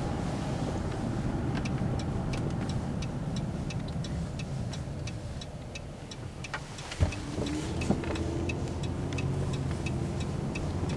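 Car driving, heard from inside the cabin: a steady low rumble of engine and road noise with a light, regular ticking about three times a second. A sharp knock comes about seven seconds in.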